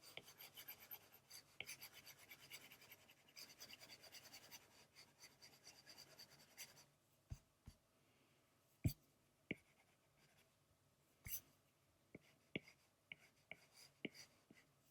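Faint scratching of a stylus stroking across a drawing tablet as colour is shaded in, dense for the first half, then a few scattered separate taps.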